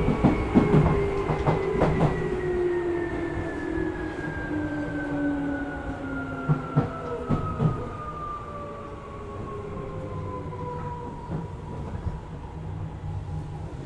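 Tokyu 8500 series electric train with Hitachi traction motors, heard from on board as it brakes: its motor whine falls steadily in pitch as it slows. Wheels clack over rail joints in the first couple of seconds and again about halfway.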